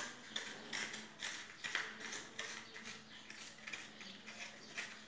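Raw onion being hollowed out with a blade, a quick run of short crisp scrapes and crunches, about two or three a second, as the inner layers are cut and scooped out.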